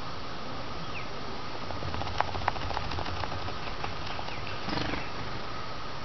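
Steady hiss with a run of faint clicks and small rustles from about two seconds in, and a short louder rustle near the five-second mark, as an American robin shifts about in its nest of dry grass and twigs.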